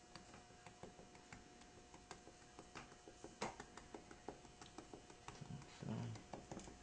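Faint, scattered light clicks and taps of a butter knife cutting around a paper template in salt dough, over a faint steady hum.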